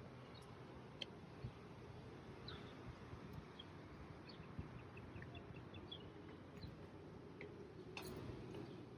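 Faint, scattered bird chirps over a low, steady outdoor background hum, with a couple of soft clicks.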